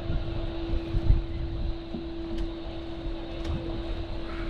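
A boat's engine humming steadily, one even tone, under gusty wind rumbling on the microphone.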